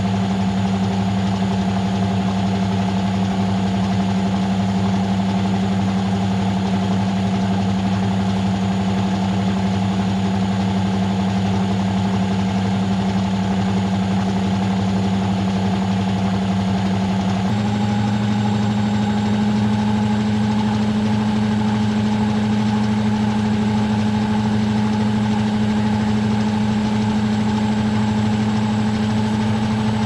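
Front-loading washing machine spinning its drum fast: a steady motor hum that steps up slightly in pitch a little past halfway.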